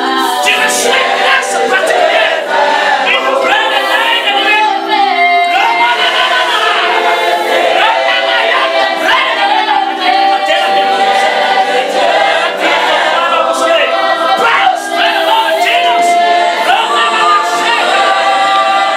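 Many voices singing together like a choir, loud and continuous, with held notes overlapping.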